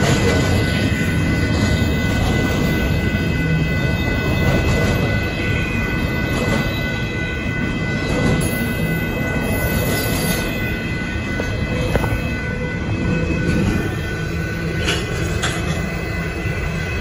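Union Pacific double-stack intermodal freight train passing a grade crossing: a steady rumble and clatter of wheels and container cars, with thin steady high-pitched tones held over it.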